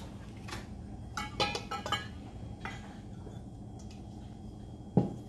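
Kitchen utensils clinking and knocking against a stainless steel mixing bowl and sieve while oat flour is sifted, with a cluster of clinks about one to two seconds in and one sharper knock near the end.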